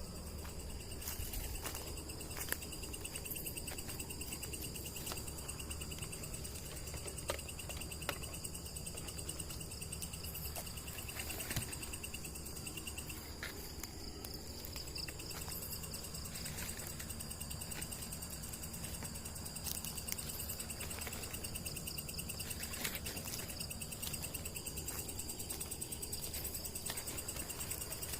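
Chorus of night insects such as crickets trilling steadily in several high pitches, with scattered faint clicks and taps.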